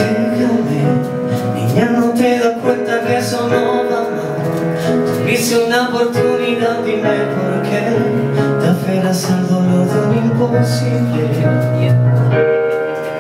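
A man singing a slow ballad over a Nord Stage keyboard accompaniment.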